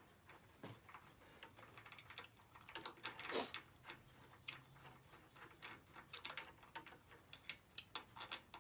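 Scattered light clicks and taps of hands working on a small engine while the voltage regulator is being taken off, with one louder, longer noise about three and a half seconds in.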